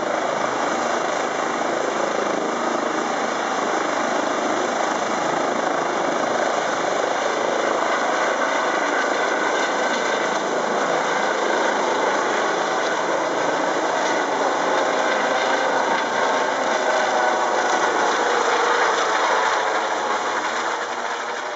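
Eurocopter EC135 rescue helicopter taking off and climbing overhead: its twin turbine engines, main rotor and Fenestron tail rotor running at take-off power, a loud, steady noise throughout.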